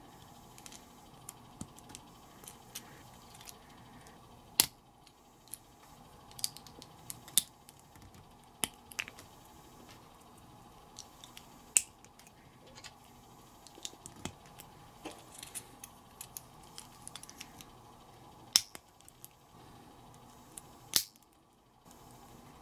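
Small plastic building bricks being handled and pressed together, giving sharp clicks and light rattles at irregular intervals, with a handful of louder snaps as pieces lock into place.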